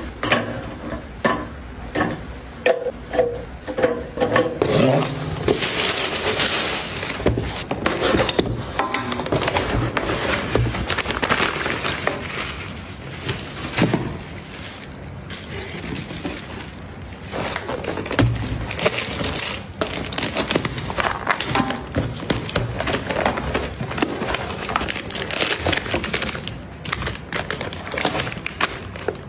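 Close-up unpacking and handling sounds. Light metallic clinks come from a stainless steel wire rack near the start. After that comes steady rustling and crackling of plastic packaging and a cardboard box as items are taken out and handled.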